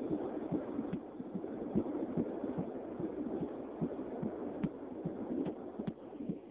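Fetal heartbeat at 14 weeks of pregnancy, picked up through the mother's belly: quick, even beats, about two to three a second, over a steady hiss.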